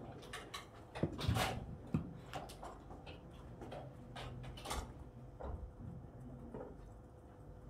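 Scattered clicks, taps and knocks with a louder rustle about a second in, over a faint steady hum.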